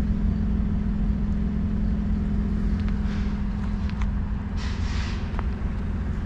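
Pickup truck engine idling with a steady low rumble, its exhaust pipe broken and leaking. A few crunches of footsteps on gravel come over it.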